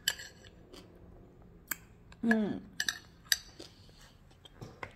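Metal spoon clicking and scraping against a ceramic bowl several times while scooping crumble, with a brief vocal sound falling in pitch about two seconds in.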